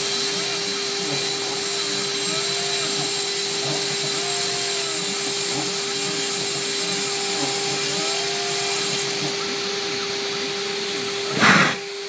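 CNC router cutting a sprocket: the spindle runs at a steady high pitch under the cutting noise, with repeated swooping tones as the machine moves. The cutting hiss drops away about nine seconds in, and a short loud burst of noise comes near the end.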